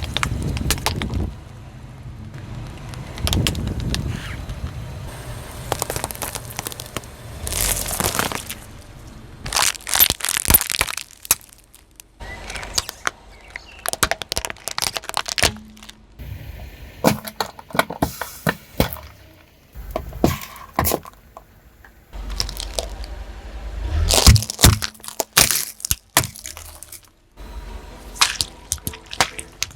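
Repeated cracking and crunching as a car wheel rolls over brittle objects and crushes them. The sharp snaps come in uneven clusters, with a loud run of them near the end.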